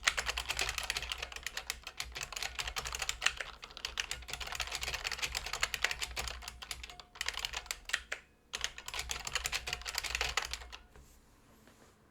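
IBM Model M keyboard with buckling-spring switches being typed on fast, a dense run of sharp clicks. There are brief pauses near seven and eight seconds in, and the typing stops about a second before the end.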